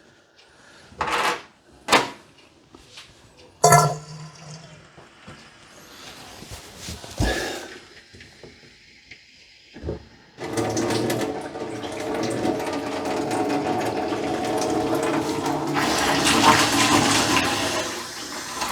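A few sharp handling clicks and knocks on the new kitchen faucet, then about ten seconds in water starts rushing steadily out of it into the sink, run with a part of the spout unscrewed to flush the new supply lines.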